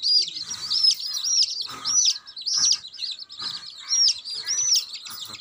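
Several rain-soaked young chicks peeping continuously: a rapid run of high, arching peeps that overlap one another.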